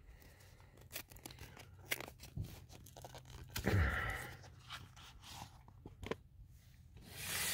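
Cardboard pot pie box and its wrapping being handled and pulled open, with scattered small clicks and crinkles and louder rustles about four seconds in and near the end.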